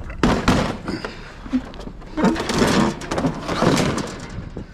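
Irregular knocks, scrapes and rattles of bulky curbside junk being pulled about and moved by hand, in several bouts.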